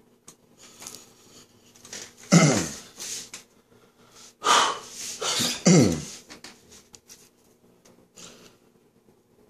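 A person makes two loud, throaty non-speech vocal noises about three seconds apart, each falling in pitch, with a breathy burst between them. Faint small ticks and scratches fill the gaps.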